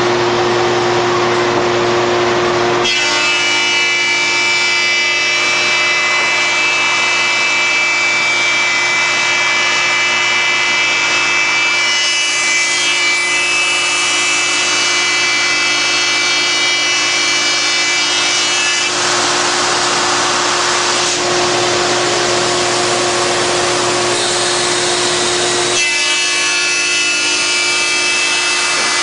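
Wide belt sander running with a wooden board feeding through under the sanding belt: a loud, steady rough sanding noise. A set of high whining tones sits over it most of the time; they drop out briefly at the start and again for several seconds about two-thirds through, leaving a smoother hum.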